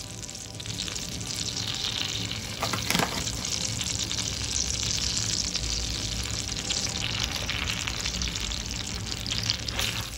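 Melted butter sizzling in a cast-iron pan as corn flour is added to it. The sizzle swells about two seconds in and stays steady; a wooden spoon starts stirring near the end.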